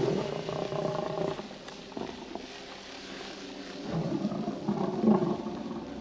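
A monster's deep, rough growl, in two bouts: one in the first second and a half and a louder one about four to five seconds in. It is a film creature sound effect coming from the haunted fridge.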